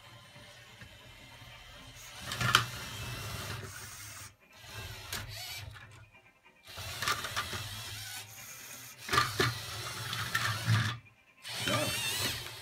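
LEGO Mindstorms robot's electric motors whirring and its plastic gears clicking as it drives and works its attachments. It stops and starts again a few times, with a sharp plastic knock about two and a half seconds in.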